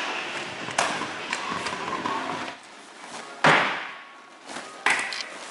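Stunt scooter knocking and banging on a wooden pallet box. Rolling noise for the first couple of seconds with a sharp knock early on, then one loud bang about three and a half seconds in and another knock near the end.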